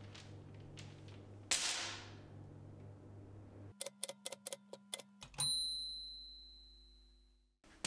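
A manual typewriter's keys strike in a quick run of about eight clacks, then its bell dings once and rings out slowly. Before that, a low hum with a sudden rushing hiss about a second and a half in that fades over about a second.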